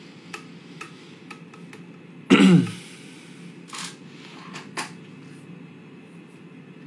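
A few faint clicks, then about two seconds in a short voiced throat sound from the guitarist, falling in pitch. A breathy exhale and two more light clicks follow.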